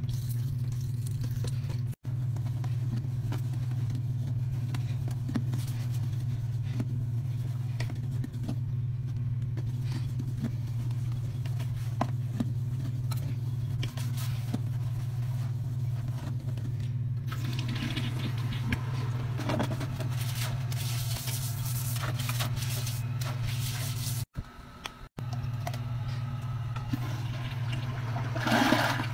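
A steady low hum runs throughout, broken by a few brief dropouts. From about two-thirds of the way in, rushing water joins it and swells near the end as a toilet bowl flushes.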